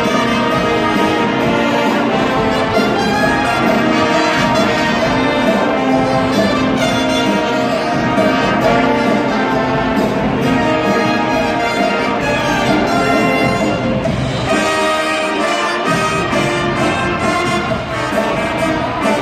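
Brass band music, with trumpets and trombones, playing loudly and without a break.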